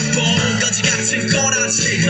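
Loud music with singing, the backing song for a pom-pom cheer-dance routine.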